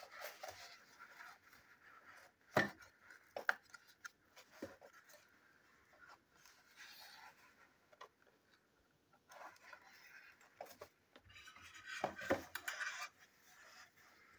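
Small cardboard box being handled and picked open by hand: faint rubbing and scraping of cardboard with a few sharp taps, the loudest about two and a half seconds in and a busier cluster of knocks and rustling near the end.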